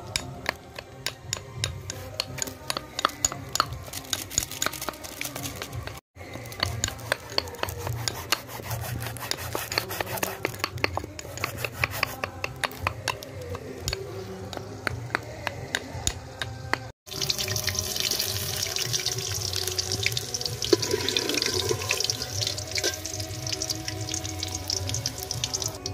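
Repeated sharp taps of a steel cleaver striking a wooden chopping board. After a cut, a steady rush of running water takes over for the last third.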